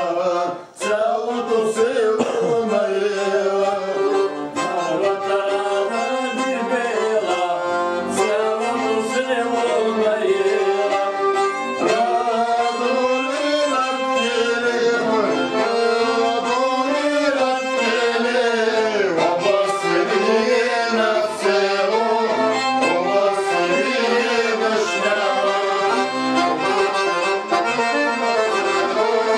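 Piano accordion and gadulka, the Bulgarian bowed folk fiddle, playing a folk tune together: a continuous dance melody with the accordion carrying the harmony and the gadulka's bowed line over it.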